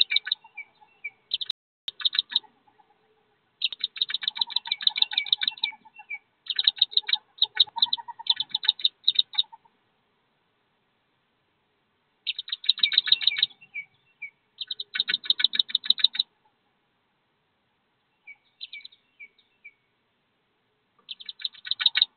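Wood duck ducklings peeping inside their nest box: rapid runs of high, repeated peeps in bursts of one to three seconds, with short pauses between them and a longer lull about halfway through.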